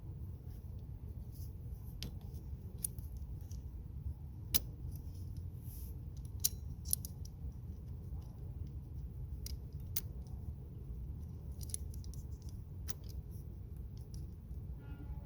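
Scattered small metallic clicks and taps of vise-grip pliers working a screw on a car battery terminal clamp, over a steady low rumble.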